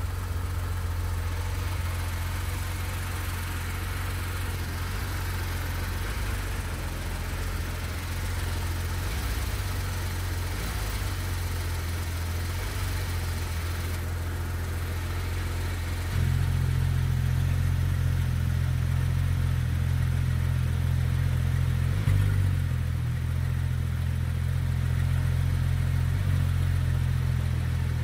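Porsche GT3 RS's 4.0-litre flat-six idling steadily through its twin centre exhaust tips, with the exhaust valve closed. About halfway through, the idle note steps up in loudness and turns deeper and fuller, and there is a brief small blip a few seconds later.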